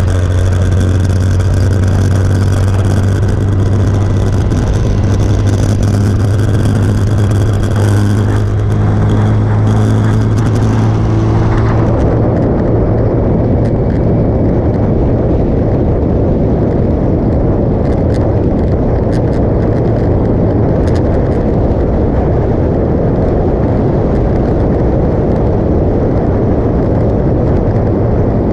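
Motorcycle engine running steadily at highway speed with wind noise over the microphone. About twelve seconds in, the engine's steady hum and the high hiss fade under a duller, muffled wind rush.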